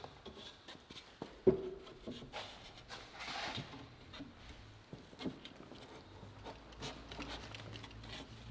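Scattered light wooden knocks and handling sounds as pine door rails and a stile are moved and dry-fit together, with one sharp knock about one and a half seconds in.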